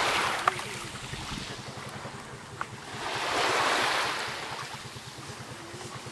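Wind buffeting the microphone over the rushing wash of small waves at the shoreline, swelling up about three seconds in and easing off again. A single sharp click comes about half a second in.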